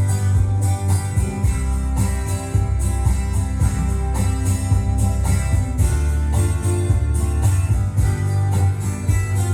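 Country-folk music: strummed acoustic guitar over a steady bass line, with no vocals.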